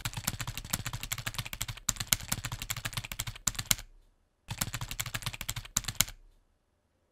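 Typing sound effect: rapid keyboard key clicks in quick runs, pausing briefly about four seconds in and stopping about six seconds in.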